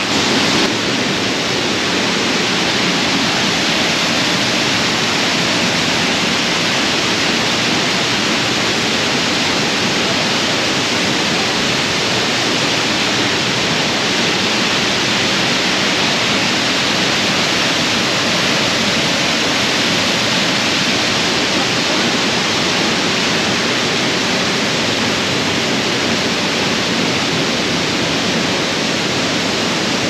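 An 82-foot waterfall pouring into a plunge pool: a steady, even rush of falling water.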